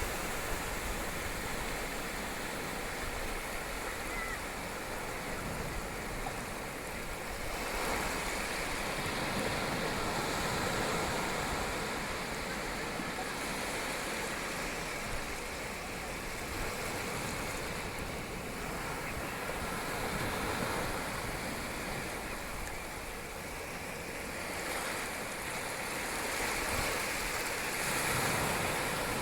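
Ocean waves washing onto a beach, a continuous surf hiss that swells and eases every several seconds.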